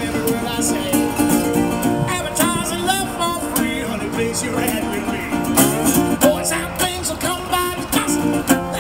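Metal-bodied resonator guitar strummed and picked in a blues song, with a man singing over it.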